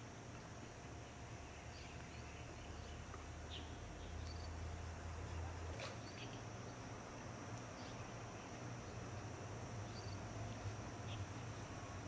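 Faint outdoor ambience: a steady high hiss with short, high chirps every second or two, and one faint click about six seconds in.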